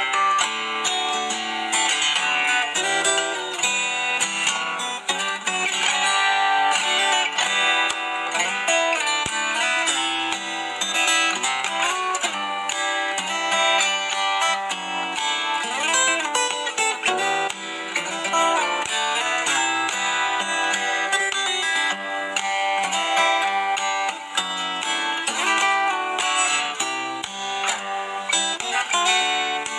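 Fingerstyle acoustic guitar playing a continuous melody over chords, with plucked single notes and strums mixed together.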